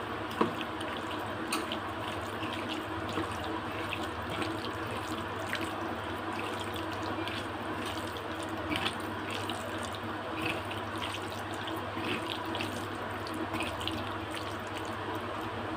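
A hand squishing and kneading raw beef with a wet spice-and-yogurt marinade in a steel colander: scattered small wet clicks over a steady hiss and faint hum.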